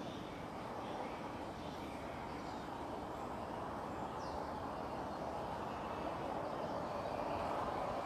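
Steady outdoor background noise, growing a little louder near the end, with a few faint high bird chirps, the clearest a short falling chirp about four seconds in.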